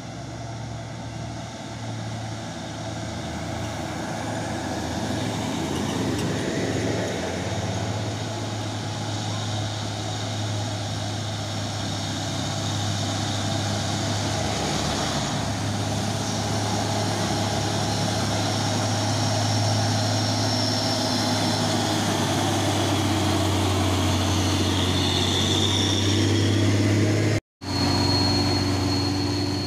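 Heavy diesel truck engine running as it pulls up the climb, a steady low drone that grows louder as the truck comes close. The sound drops out for an instant near the end.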